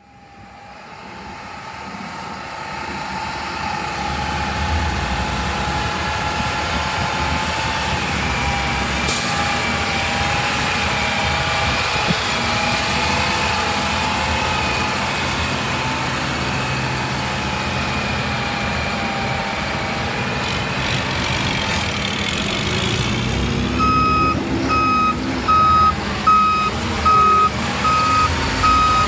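Cement spreader truck's diesel engine running as it drives slowly past, spreading powdered cement onto the road, rising in level over the first few seconds, with a steady whine above it. Near the end a backup alarm beeps about twice a second.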